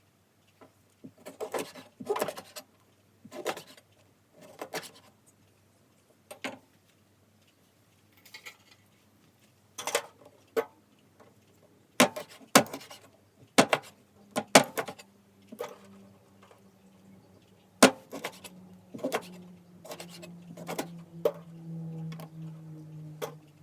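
Irregular sharp clicks and cuts as the claws are cut off raw chicken feet. A low steady hum joins in for the last several seconds.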